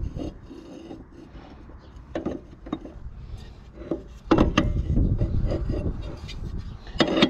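Hands working on a lawnmower's removed blade carrier and blades: scattered clicks and knocks, then louder rubbing and scraping with knocks from about four seconds in.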